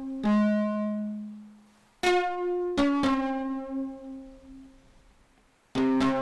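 Instrumental background music: single plucked or struck notes that ring out and fade, with short pauses between phrases.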